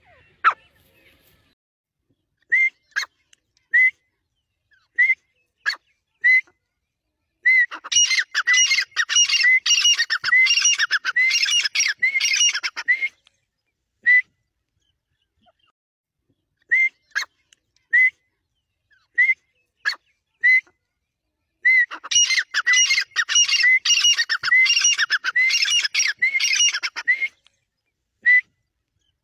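Grey francolin calling. Single, spaced-out high notes build into a fast run of repeated calls lasting about five seconds. The pattern then comes round again: scattered notes, a second fast run, and one last note near the end.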